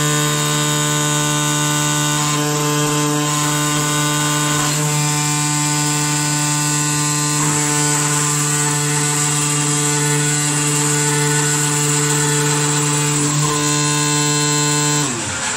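CNC knife cutting machine running as it cuts multi-layer sofa fabric, with a steady buzzing hum. Just before the end the hum drops in pitch and winds down as the machine stops.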